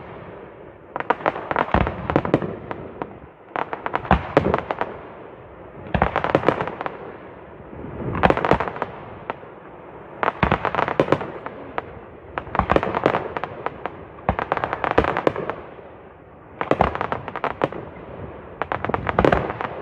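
Fireworks display: clusters of rapid crackling pops and bangs, about one cluster every two seconds, with quieter crackle between them.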